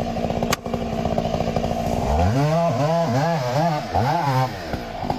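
Chainsaw engine running steadily, then revved up and down about five times in quick succession from about two seconds in, settling back near the end.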